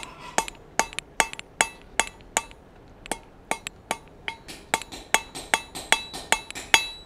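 Hand hammer striking a hot 5/16-inch round steel bar on an anvil, forging a chisel-point taper: a steady run of blows about two and a half a second, some lighter than others, each with a short bright ring.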